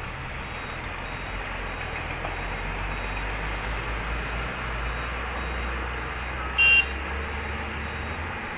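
Road traffic ambience with a steady low engine rumble, and one short, loud vehicle horn honk about six and a half seconds in.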